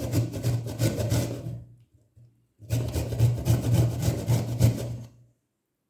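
A turnip being grated by hand on a grater: rapid rasping strokes in two runs, with a short pause about two seconds in.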